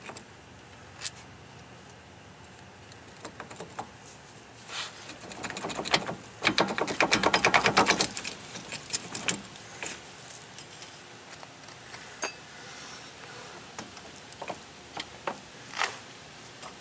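Metal clinks and knocks as the rear driveshaft is unbolted and worked off the pinion flange of a 1987 Suzuki Samurai's rear axle. Near the middle comes a rapid run of metallic clicks lasting about a second and a half, the loudest part.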